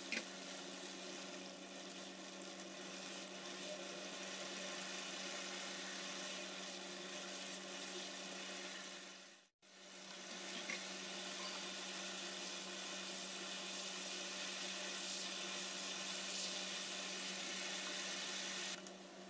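Chicken curry bubbling and sizzling as it simmers in an open non-stick pan, with a steady low hum underneath. The sound breaks off for a moment about halfway through.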